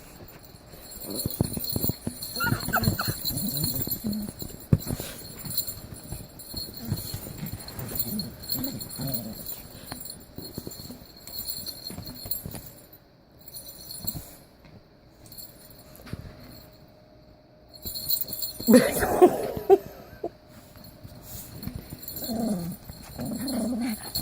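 Pomeranian growling in bouts while worrying and shaking a stuffed toy, with rustling and jingling throughout and a louder burst a little over three-quarters of the way through.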